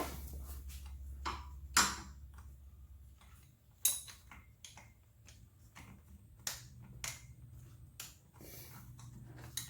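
Hand tools clicking and knocking on metal while working at bolts on an ATV: a handful of sharp, separate clicks and taps a second or more apart, the loudest about two and four seconds in.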